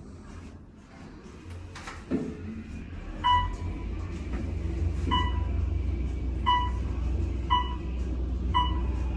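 Elevator car in motion: a knock about two seconds in, then a steady low rumble of the car travelling. A short electronic beep sounds about once a second over it, typical of an elevator's floor-passing chime.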